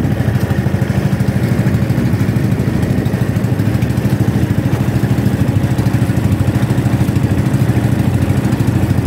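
Small engine of a motorized outrigger boat (bangka) running steadily under way, with a fast, even pulsing beat.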